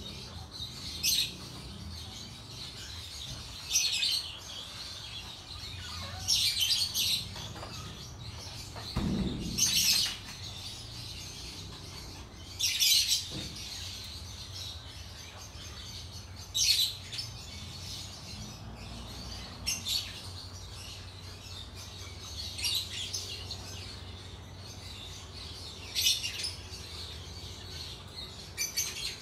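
Birds chirping: short, high calls every two or three seconds at uneven intervals, over a steady low background hum, with one brief low sound about nine seconds in.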